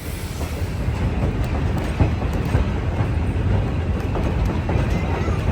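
Passenger train car rolling along the track: a steady low rumble with faint clicks of the wheels over the rails.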